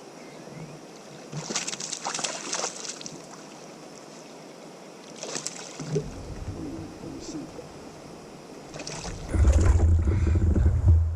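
Water splashing and sloshing around a kayak in a few separate bursts. A loud low rumble begins about nine seconds in.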